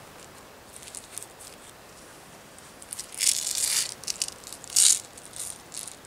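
Seasoning being shaken and sprinkled from the hands, a dry rattle with a longer burst about three seconds in and a short, louder shake just before five seconds, between light crackles.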